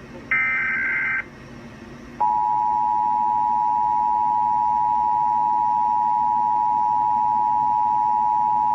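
Emergency Alert System broadcast tones: a short burst of SAME digital header data lasting about a second, then, about two seconds in, the steady two-tone EAS attention signal (853 and 960 Hz together) starts and holds.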